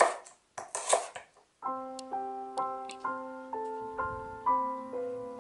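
A knife cuts through celery on a wooden chopping board in a few quick strokes. From about a second and a half in, a solo piano plays a melody of single notes, about two a second.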